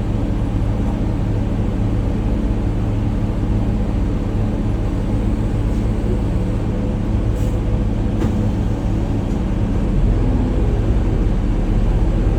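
City bus engine running under load, heard from inside the bus as a steady low drone that grows a little louder about ten seconds in.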